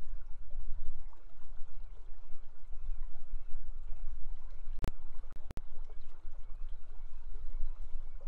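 River water running with a steady low rumble underneath. A sharp click comes just before the five-second mark, followed half a second later by a quick pair of clicks.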